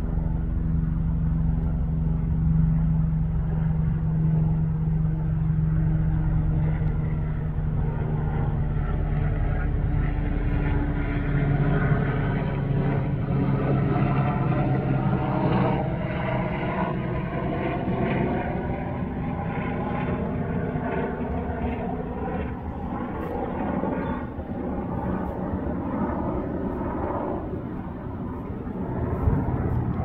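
Steady drone of a passing engine. Its pitch drops to a lower note about a third of the way through, and the sound thins out over the last third.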